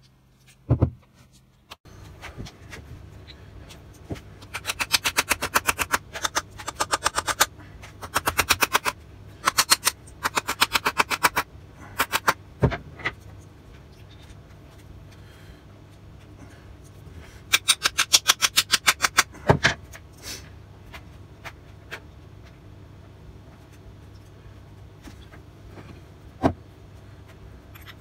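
Ratchet wrench clicking in several quick runs of about seven clicks a second while tightening the bolts of a small bench vice during reassembly. Between the runs come a few single sharp knocks of metal parts set down, over a steady low hum.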